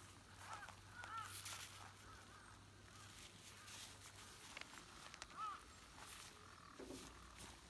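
Faint crows cawing, a few short calls about half a second in, around a second in and again near five and a half seconds in, over near silence.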